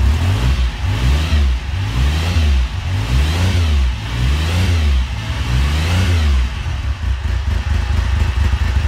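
Motorcycle engine revved in a series of about five blips, each rising and falling in pitch roughly once a second, then running more steadily near the end.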